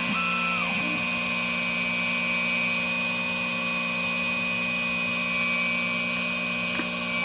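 Xhorse XP005 Dolphin key cutting machine running mid-job: a steady motor hum with a high whine, and a few short gliding tones in the first second.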